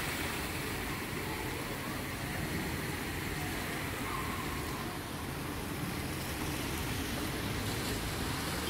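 Steady hiss of heavy rain and water on a flooded street, with car tyres swishing through the water as cars drive slowly past.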